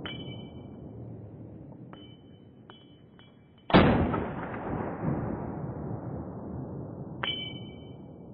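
One rifle shot from an AR-15-style carbine a little before halfway, its report echoing back and dying away over several seconds. Short, ringing metallic pings sound several times before the shot and once near the end.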